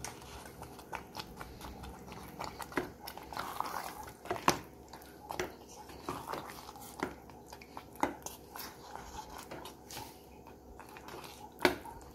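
A steel spoon stirring raw chicken pieces into thick gravy in a pressure cooker pot: wet squelching, with irregular clinks and scrapes of the spoon against the pot. The sharpest knocks come about four and a half seconds in and near the end.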